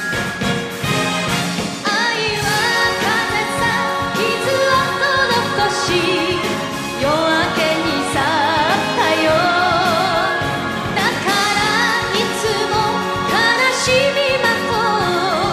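Recorded Japanese enka-style song: a woman sings with strong vibrato over band accompaniment, her voice entering about two seconds in after a short instrumental passage.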